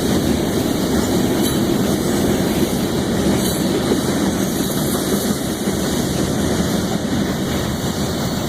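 Loaded grain hopper cars of a freight train rolling past, a steady rumble of steel wheels on the rails with a few faint clicks from the rail joints.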